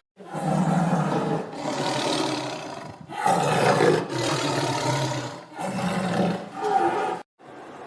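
A large animal's low-pitched roaring calls, about five in a row, each a second or so long, cut off suddenly near the end.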